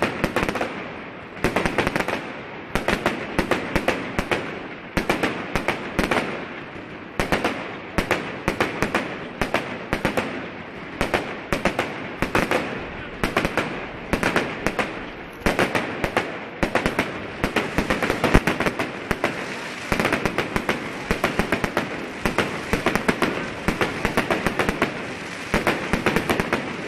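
Fireworks display going off: a continuous barrage of sharp bangs and crackling, several reports a second with no pause.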